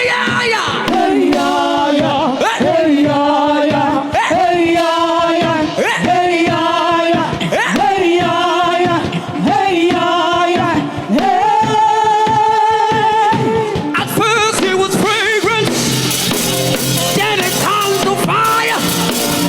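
Live gospel singing with band accompaniment: a voice sings a run of short held phrases. Near the end the drums come in more strongly.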